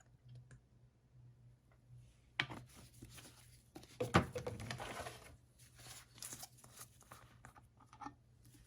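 Handling noises: scattered sharp clicks and rustles starting about two and a half seconds in, loudest about four seconds in, over a faint steady hum.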